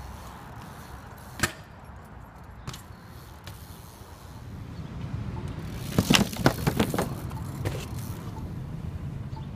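Road traffic noise with a few sharp clicks, then, about six seconds in, a quick run of loud clanks and knocks from a BMX bike striking concrete.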